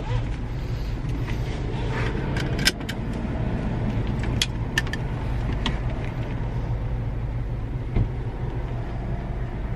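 Car engine idling steadily, heard from inside the cabin, with a few light clicks and taps.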